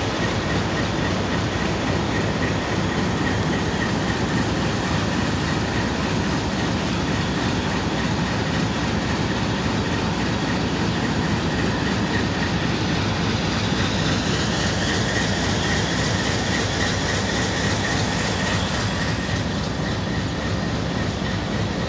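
Passenger train rolling steadily along the rails: continuous rumble and clatter of coach wheels, with a thin steady wheel squeal that grows stronger partway through.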